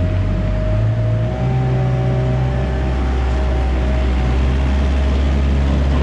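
Engine of a Gehl 540 compact wheel loader running as the loader drives with a load on its forks; the engine note steps up slightly about a second and a half in.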